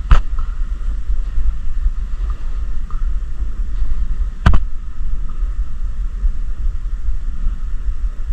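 Wind buffeting the microphone as a steady low rumble, broken by two sharp cracks about four seconds apart.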